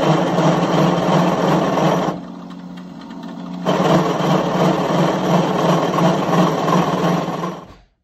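Drill press running with its bit cutting into a billet metal shift knob adapter clamped in a vise, boring it out. A steady motor hum runs under a harsh cutting noise that eases off for about a second and a half a couple of seconds in, comes back, and stops suddenly just before the end.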